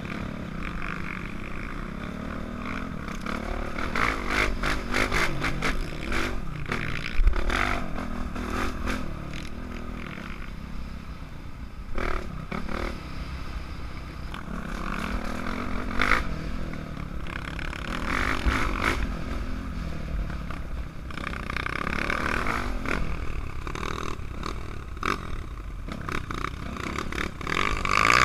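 Dirt bike engine running and revving up and down as the bike rides a bumpy dirt trail, heard from a helmet-mounted camera, with knocks and rattles from the bumps now and then.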